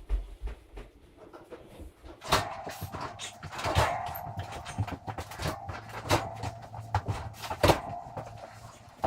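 A metal kitchen stove being shoved and dragged across the floor on a blanket: a run of knocks and rattles over a steady scraping drag, starting about two seconds in.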